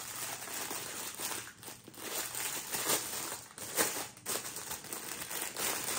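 Plastic packaging crinkling and rustling in the hands, with irregular crackles throughout, as a newly delivered item is unwrapped and handled.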